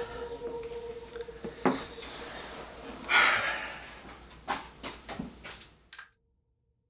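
Table and chair handling noises as a person gets up from a wooden chair: a sharp knock, a louder scrape about three seconds in, then a few light knocks. The sound cuts off abruptly about six seconds in.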